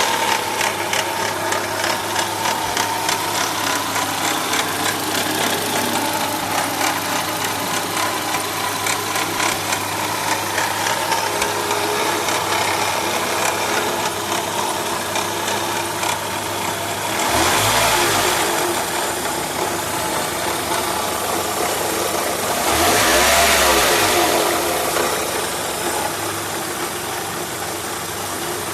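Renault K7M 1.6-litre eight-valve petrol engine idling with a fast, regular ticking: the extraneous engine noise in question. It is revved briefly twice in the second half, each time rising and falling back to idle.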